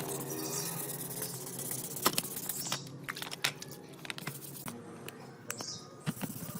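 Small metal parts and tools clicking and clinking as they are handled, with a sharp click about two seconds in, over a faint steady hiss that drops away about three seconds in.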